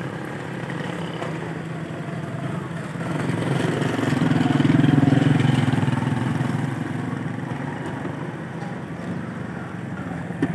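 A motor vehicle engine running steadily, swelling louder for a few seconds in the middle and then easing off.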